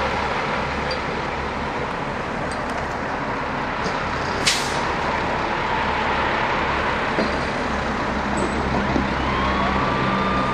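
Steady roadside traffic and idling truck engine noise, with a short sharp air hiss about halfway through. Near the end a siren tone rises and holds.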